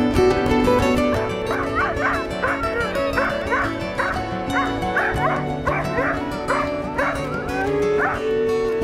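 Sled dogs (huskies) barking and yipping in a rapid run of short barks, about two a second, starting about a second in, over background music.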